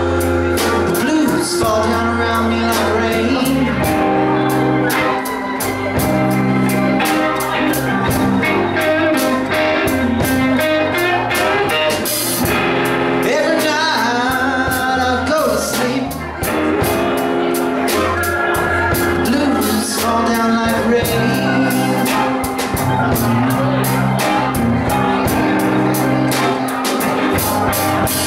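Live blues-rock band playing a blues number: electric guitars, bass, keyboard and drum kit, with a steady drum beat. About halfway through a note bends up and down.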